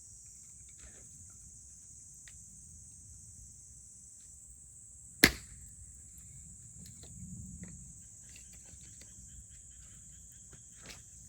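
Campfire crackling with scattered small pops, and one sharp loud pop about five seconds in, over a steady high-pitched drone.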